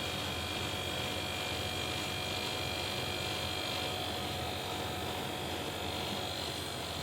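Split air conditioner running on its test after a refrigerant recharge, just beginning to cool: a steady hum with a few thin high whining tones that fade out about halfway through.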